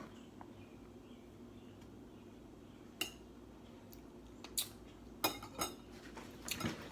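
A knife and plate clinking and knocking a few times while a piece of lemon cake is cut and served, over a faint room hum.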